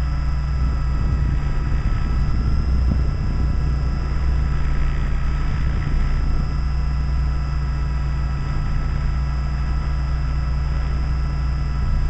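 Align T-Rex 500 electric RC helicopter heard from its own onboard camera in flight: a steady whine from the Scorpion brushless motor and drivetrain over a heavy rush of rotor and wind noise.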